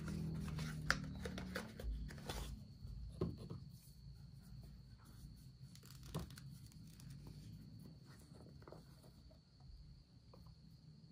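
A plastic skincare cream jar being slid out of its paperboard box and handled: a run of paper rustles, scrapes and small clicks in the first few seconds, then only a few faint taps and handling sounds.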